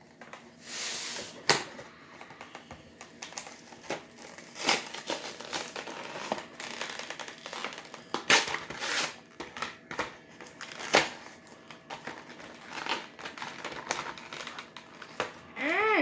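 Plastic and cardboard toy packaging being handled and pulled open: crinkling, with sharp snaps and clicks every few seconds.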